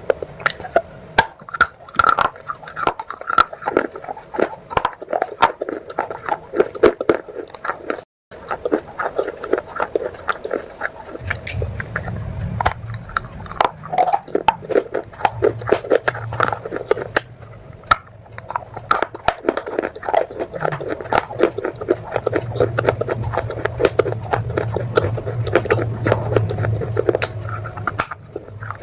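Close-up crunching and chewing of wet clay pot pieces: rapid, crisp crunches one after another, with a brief break about eight seconds in. A low hum comes in partway through and runs under the crunching.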